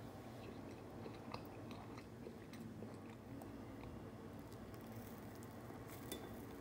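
Quiet eating sounds of soft yogurt soufflé cake: many small moist clicks and squishes, with a light clink of a fork against the glass plate about six seconds in.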